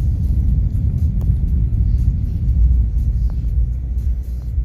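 Car driving along, its low road rumble steady and loud throughout.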